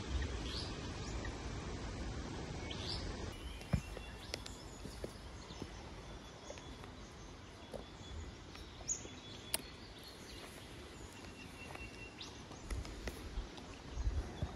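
Scattered short bird chirps and faint high calls over a low rumble and soft background noise, with a few sharp clicks.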